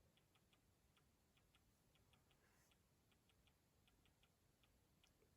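Near silence: room tone with very faint, irregular light ticks.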